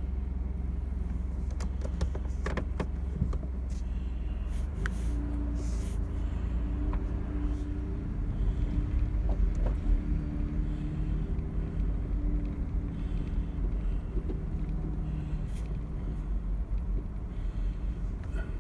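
Motor vehicle driving with its engine running: a steady low rumble with engine tones that shift in pitch, and a few knocks and rattles in the first several seconds.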